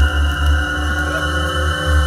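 Live electronic noise music from a laptop rig played through a PA speaker: a thick, steady drone of many layered tones over heavy, wavering bass.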